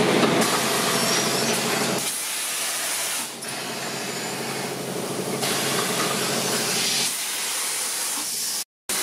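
Machinery of a PET bottle blow-moulding setup with its glowing preform heater: a steady air hiss over a low machine hum. The hiss changes in level a few times and breaks off for a moment near the end.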